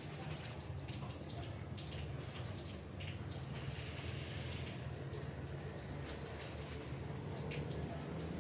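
Several cats lapping and chewing food from plastic plates: soft, irregular wet clicks and smacks over a steady low hum.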